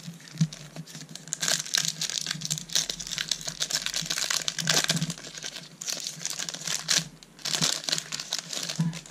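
Foil wrapper of a Panini Adrenalyn XL trading-card booster pack crinkling as it is handled and torn open by hand, in several spells of crackling.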